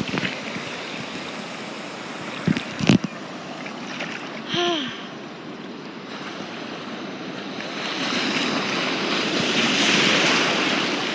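Ocean surf washing around, with the rush of water swelling near the end as a wave comes in. There are a couple of sharp knocks a few seconds in and a brief falling vocal sound midway.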